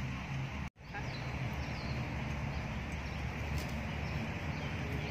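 Steady outdoor background noise with a low rumble. A few faint bird chirps come between about two and four seconds in. The sound cuts out completely for a moment just under a second in.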